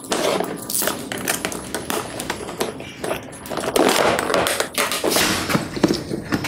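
Stanley hard plastic tool case being handled and opened: an irregular run of plastic clicks and knocks as the latches are worked and the case is tilted and set down on the bench, with short rustles between.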